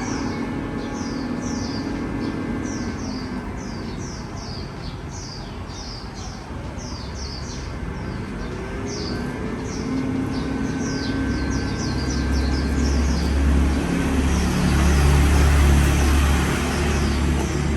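Small birds chirping repeatedly, short falling chirps two or three a second, over a steady low mechanical rumble that grows louder about ten seconds in.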